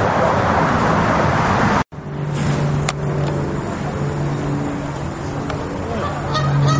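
Road traffic noise, then after a brief cut a steady low motor-vehicle hum; short goose honks begin near the end.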